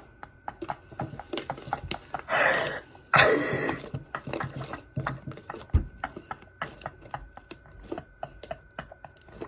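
Homemade glitter slime being squished and pulled by hand, giving many small sticky clicks and pops. Two louder breathy rushes come a little over two and three seconds in.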